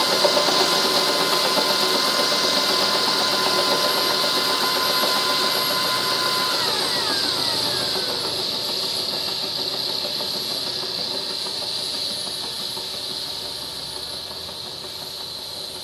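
UH-1H Huey helicopter turbine sound from a sound module played through a speaker inside a scale H-34 helicopter model: a steady whine over hiss. The whine glides down in pitch about seven seconds in, and the sound then slowly fades, like the turbine winding down.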